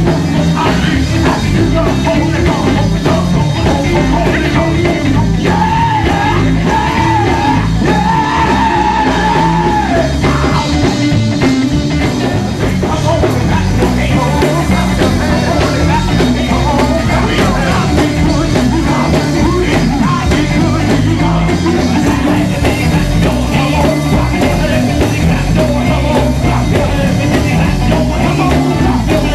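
Loud live gospel music from a church band, with a lead singer on a microphone singing and shouting over a full, driving accompaniment. A long wavering sung line stands out from about six to ten seconds in.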